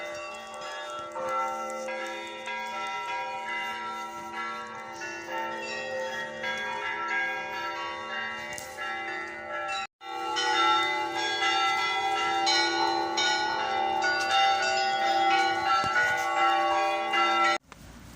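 Church bells pealing: several bells of different pitches struck again and again in an overlapping, continuous ring. It breaks off for an instant about ten seconds in and comes back louder, then cuts off abruptly near the end.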